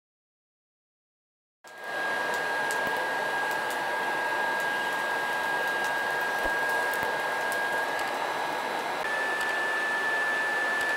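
Electric air blower running steadily, with a high whine, blasting air through a pipe into a charcoal forge fire; it starts abruptly about two seconds in. A few faint crackles come from the burning fuel, and the whine steps slightly higher near the end.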